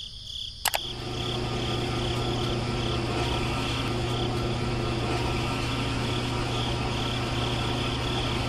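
A rocker switch clicks on about a second in, then the small electric motor of a miniature model concrete mixer starts and runs with a steady hum, turning the drum.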